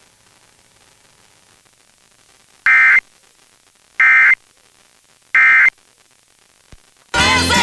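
Emergency Alert System end-of-message data tones: three identical short, harsh digital bursts about a second and a half apart, marking the end of the required monthly test. Music starts near the end as the station returns to programming.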